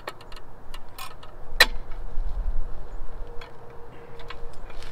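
Small clicks and rattles of trailer wiring and plastic connectors being handled and tucked into place at a breakaway switch, with one sharper click about a second and a half in.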